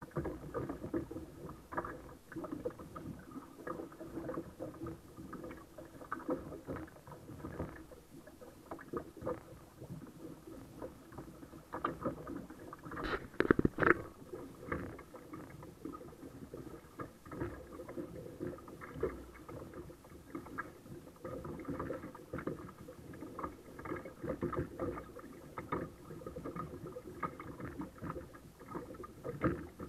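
Choppy water slapping and splashing against a kayak's hull in a continuous irregular run of small splashes, with a bigger splash about 13 seconds in.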